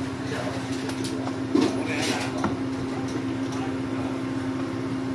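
Steady machine hum of kitchen equipment, with a few light clicks and knocks about a second and two seconds in.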